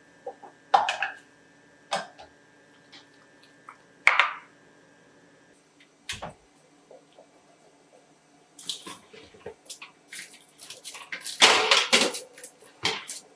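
Kitchen handling sounds: a few scattered clinks and knocks, then a clunk about six seconds in as an oven door is pulled open. After that comes a run of metallic rattling and scraping as the oven rack and a foil-lined baking sheet slide out, loudest near the end.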